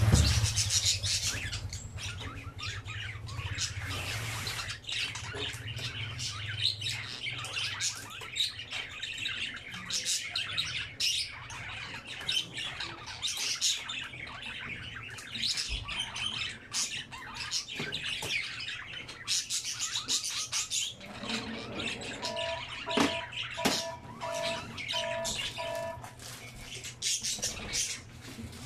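Birds chirping and squawking over and over, with a short run of evenly spaced beeps about three-quarters of the way through.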